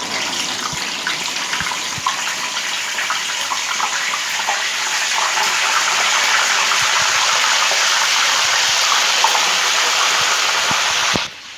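A fresh batch of tilapia frying in hot oil: a dense sizzle full of small crackling pops, growing louder over the first several seconds, then cutting off suddenly near the end.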